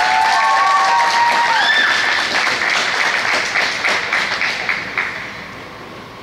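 Audience applauding and cheering, with a few voices calling out in the first two seconds. The clapping thins out and dies away about five seconds in.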